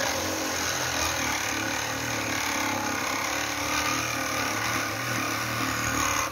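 Cordless reciprocating saw running, its blade cutting through a steel nail: a steady rasp of the blade on metal over the hum of the motor.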